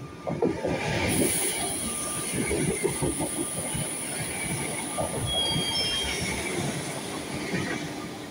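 Double-deck electric commuter train running past the platform at speed: rumble and clatter of its wheels on the rails under a steady high-pitched whine, with a few brief wheel squeals about five seconds in.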